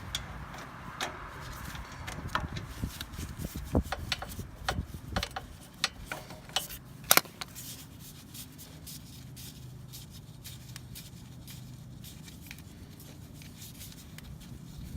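Metal clicks and knocks of a wrench working the oil drain bolt on a Champion 9200 generator, irregular over the first half, with a loud double knock about seven seconds in, then quieter.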